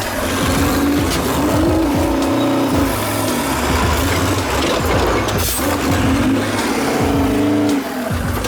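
A truck engine revving under load, its pitch rising and falling several times, over background music.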